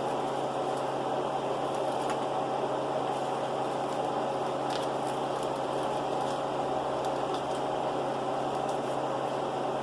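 Steady machine hum of a running appliance, unchanging throughout, with a few faint ticks.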